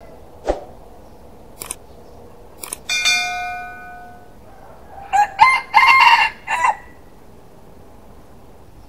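Rooster crowing once, a cock-a-doodle-doo lasting about a second and a half, starting about five seconds in; it is the loudest sound. Before it come a few light clicks and, about three seconds in, a bell-like ding that rings and fades over about a second.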